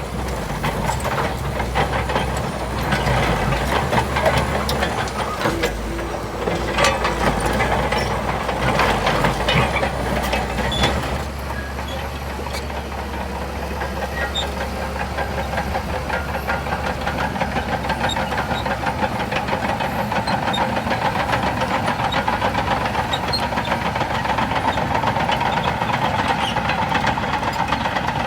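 Shantui DH17C2 bulldozer's diesel engine running under work, with a steady low drone and many metallic clanks and knocks in roughly the first ten seconds, then a steadier, higher whine.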